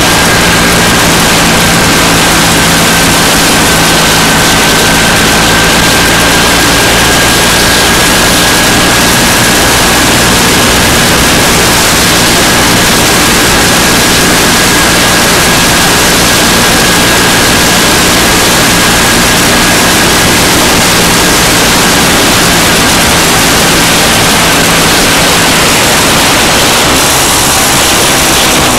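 MZ motorcycle riding along at steady speed, a loud rushing noise, mostly wind on the microphone, over the steady drone of the engine. The engine note fades near the end.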